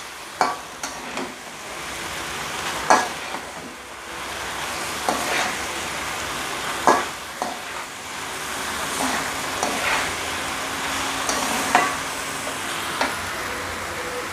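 Stir-fried noodles and vegetables sizzling in a hot metal wok while a spatula tosses and mixes them, with irregular scrapes and knocks of the spatula against the pan every second or two.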